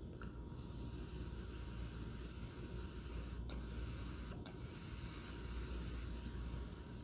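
A long, slow inhalation through a DynaVap B vaporizer, freshly heated until ready, with a steady airy hiss of air being drawn through it. The draw breaks off briefly twice near the middle.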